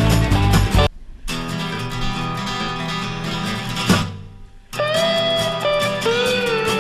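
Background music led by guitar. The beat and bass drop out about a second in, and gliding notes come in near the end.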